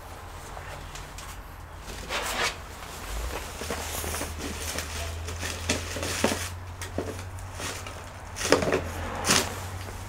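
Scattered clicks, taps and rustles of parts and tools being handled on a workbench, over a low steady hum.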